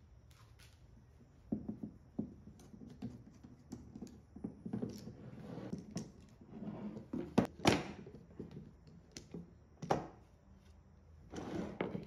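Metal bar clamps being loosened and lifted off glued-up pine boards, with irregular knocks, clatters and short scrapes of clamps and wood set down on a workbench. The loudest knocks come a little past the middle and again about ten seconds in.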